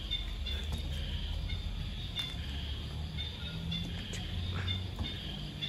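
Night insects chirping: repeated short, high chirps over a low rumbling noise on the microphone.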